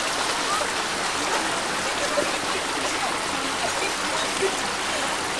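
Steady rushing of a mountain creek, with a few faint voices over it.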